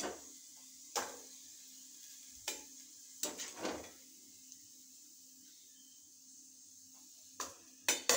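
A ladle clinking and scraping against a frying pan a few times as fried yam pieces are lifted out of the hot oil, with a faint sizzle of oil underneath. The clinks come in a cluster early, then a pause of a few seconds, then several more near the end.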